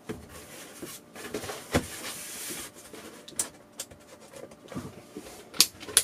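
Plugs and cords being handled and pushed into a power strip tower, with a few sharp plastic clicks and knocks; near the end, a click as the tower's top power button is pressed.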